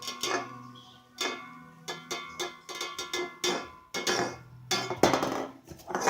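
A plastic fidget spinner being handled and knocked about, giving a rapid, irregular series of sharp clacks and knocks, over a faint steady hum.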